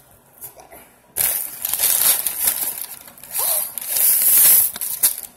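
Brown paper takeout bag rustling and crinkling as it is opened and rummaged through. The rustling starts about a second in and comes in two loud spells.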